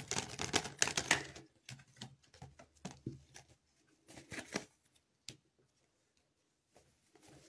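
Tarot cards being shuffled and handled: a dense run of quick clicks for about a second and a half, then scattered card flicks and rustles that stop about five seconds in.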